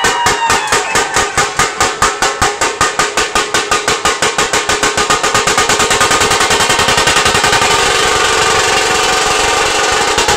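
Dhol-tasha ensemble: large barrel dhol drums with a tasha on top, beating a steady rhythm of about five strokes a second. About halfway through it speeds up into a fast, almost continuous roll.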